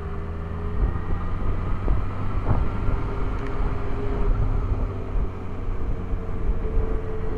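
Motorcycle engine running at steady road speed, heard through a microphone tucked in foam inside the rider's helmet, with a constant low wind rumble underneath.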